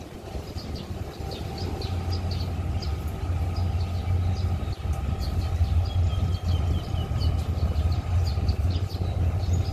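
Diesel locomotive of an approaching container freight train, its engine a low, steady rumble that grows louder over the first few seconds and then holds.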